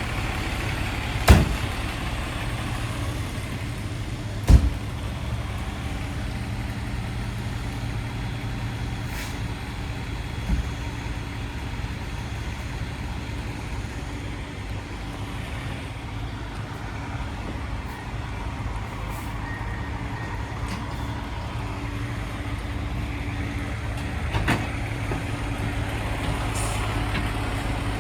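Fire truck's diesel engine idling steadily, with several sharp knocks; the two loudest come in the first five seconds.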